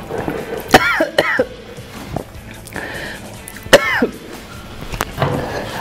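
A man coughing and clearing his throat in a few short vocal outbursts, reacting to the burn of extremely spicy fire noodles, with background music underneath.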